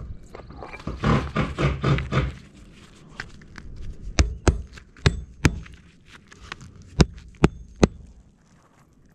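Sharp knocks of a metal shingle ripper bar striking into asphalt roof shingles and nails, about seven strikes in two quick groups. A rough rasping scrape comes about a second in.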